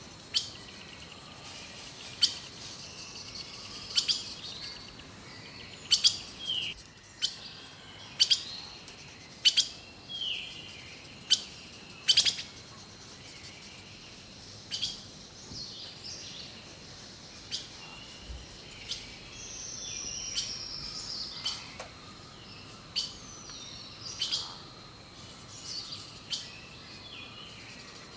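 Birds singing: short sharp chirps every second or two, mixed with whistled notes, some sliding down in pitch.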